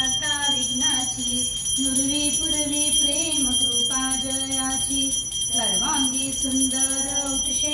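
Small puja hand bell rung continuously during an aarti, a steady, rapidly pulsing high ringing. Voices sing a devotional hymn over it.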